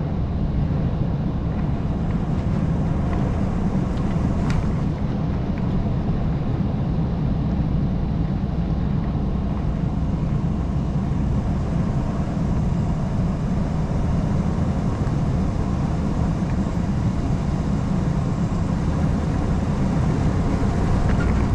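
Steady low rumble of road and engine noise inside a moving pickup truck's cab.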